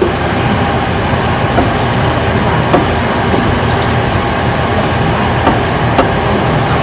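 Ground pork and diced potatoes and carrots sizzling steadily in a stainless steel sauté pan as they are stirred with a wooden spoon, with a few light knocks of the spoon against the pan.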